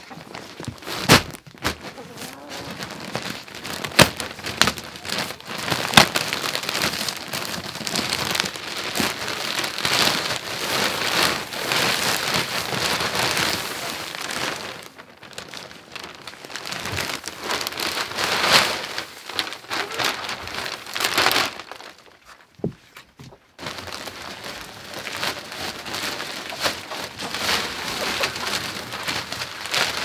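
Wood shavings shaken and poured out of a plastic-wrapped bale onto a coop floor: a continuous rustling hiss with plastic crinkling and a few sharp knocks in the first few seconds. The rustling stops briefly twice, once about halfway through and once for about a second near the three-quarter mark.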